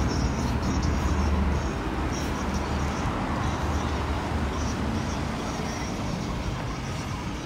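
Road traffic at a city intersection: cars running and passing, with a low engine hum that is strongest in the first couple of seconds and again a little later, over steady tyre and street noise.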